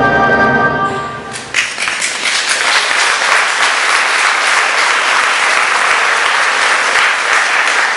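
A held closing chord of the music ends just over a second in, and a theatre audience breaks into sustained applause.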